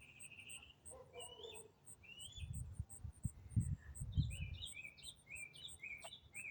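A songbird singing faintly, a continuous varied song: a held high note, then short high phrases repeated in quick succession in the second half. A steady high ticking at about three a second runs underneath, and there are a few low bumps in the middle.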